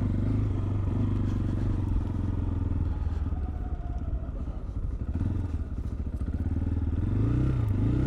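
2019 CSC TT250's single-cylinder engine running as the bike is ridden, the pitch shifting with the throttle. Near the end the engine pitch rises and falls twice in quick succession.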